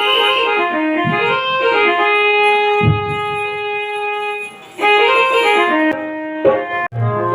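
Instrumental melody on a keyboard instrument, moving note by note with a long held note in the middle. It breaks off for an instant near the end.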